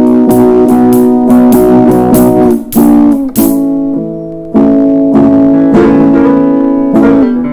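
Live band playing an instrumental passage with no singing: guitar chords over bass, keyboard and drums, with sharp drum and cymbal hits on the beat.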